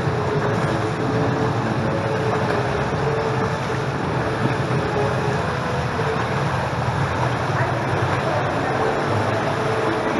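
Indoor swimming pool sound: a steady wash of water splashing and lapping from swimmers doing lengths, with a low constant hum underneath.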